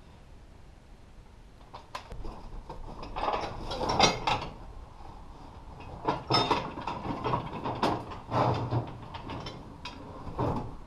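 Cardboard packing being pulled and shifted against a steel shipping crate: irregular rustling, scraping and clattering knocks in several clusters, starting about two seconds in.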